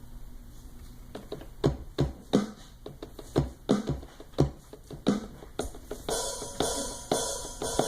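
Drum samples triggered from the pads of a Native Instruments Maschine MK3 controller on the soft 3 sensitivity setting. About a dozen separate, irregular hits start about a second and a half in, with brighter cymbal-like hits from about six seconds in.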